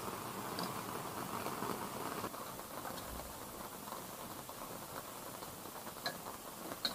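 Rain pattering steadily on the camper van's roof, a little softer after about two seconds, with a few light clicks of chopsticks against dishes, two of them near the end.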